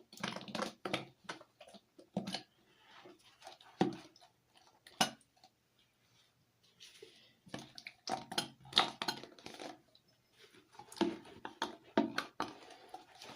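Irregular sticky clicks and crackles of hands handling toilet paper and liquid soap, with a short quiet pause midway.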